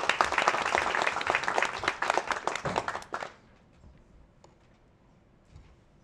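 Audience applauding, a dense patter of many hands clapping that dies away about three seconds in. Quiet room tone with a few faint knocks follows.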